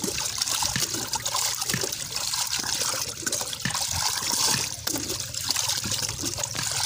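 Steady trickling and splashing of liquid, with small irregular ticks mixed in.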